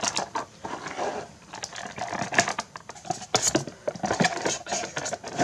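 Light, irregular clicks and taps with some rustling, from a plastic compact-style jewelry box being handled.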